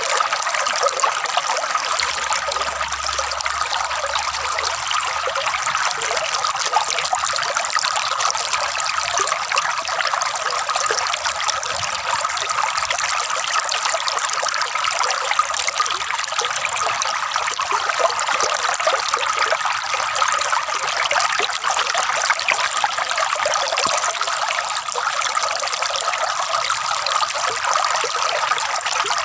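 Flowing water trickling and gurgling steadily, with no breaks or changes.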